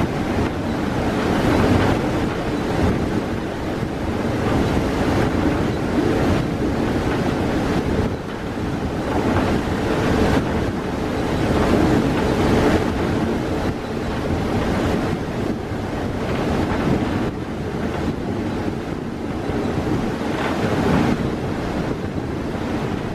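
Wind rushing over the microphone at the open cab window of a diesel locomotive running at speed, over the steady running noise of the train on the track.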